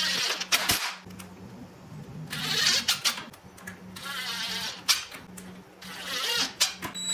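Cordless drill-driver driving drywall screws through a poplar strip into plywood, in four short bursts with sharp clicks among them.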